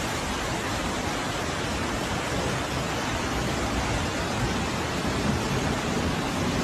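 Heavy rain falling: a steady, even hiss with no breaks.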